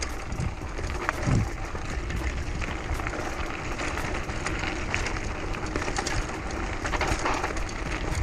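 Mountain bike riding over rough ground: a steady rumble of tyres and wind on the camera, with frequent small rattles and knocks from the bike.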